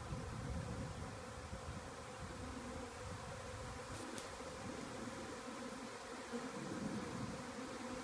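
A swarm of honey bees in flight just after leaving its hive, the many bees together making a steady, dense buzzing hum.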